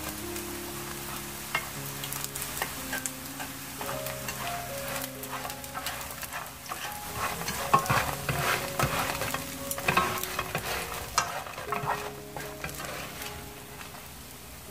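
Battered shiitake mushroom pieces sizzling as they pan-fry in a nonstick frying pan, with wooden chopsticks and a wooden spatula clicking and scraping as the pieces are stirred and turned. The clicking is busiest from about seven to eleven seconds in.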